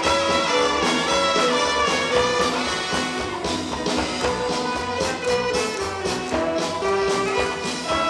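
Pop-brass band (estrada wind orchestra) playing an instrumental interlude of a slow pop song, with brass carrying the melody in held notes over a steady beat and no singing.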